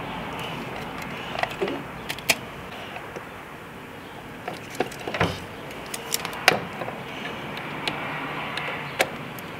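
A handful of sharp small clicks and taps from needle-nose pliers and plastic wiring connectors as a tuner's plug leads are pressed into a car's engine wiring harness, over a steady background hiss.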